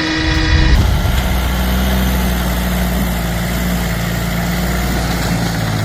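A steady horn-like tone stops under a second in, and a heavy tractor engine takes over, running steadily with a deep, even sound.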